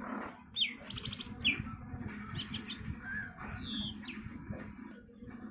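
A pet myna calling: two sharp downward whistles about half a second and a second and a half in, with a buzzy rattle between them, then a few clicks and a wavering whistle near four seconds in.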